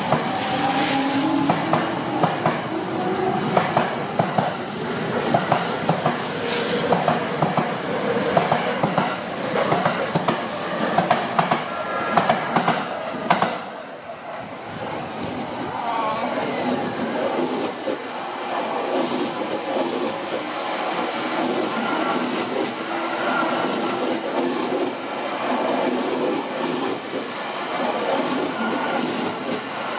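JR East 209 series 1000 electric commuter trains in motion. First a train moves along a platform, its motor whine rising in pitch over a rapid clack of wheels on rail joints. After a cut about halfway through, a train rolls slowly past with a steadier motor whine and fewer clacks.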